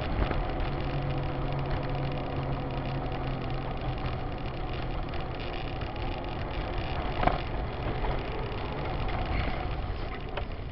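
Car engine and tyre noise heard from inside the cabin through a dashcam, a steady low drone, with a single short knock about seven seconds in.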